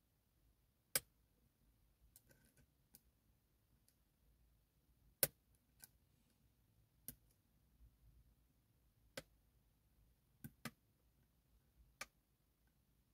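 Sharp, isolated clicks of a lock pick and tension wrench working the pins inside a Goal P pin-tumbler lock, about eight of them at irregular gaps of a second or more, over near silence.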